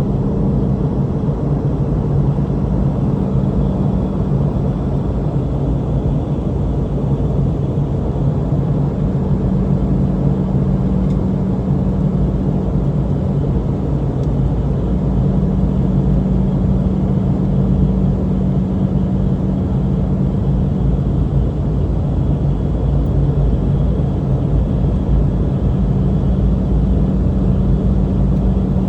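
Steady cabin drone inside a Boeing 717-200: the rear-mounted Rolls-Royce BR715 engines and airflow making a loud, even rumble with a low steady hum.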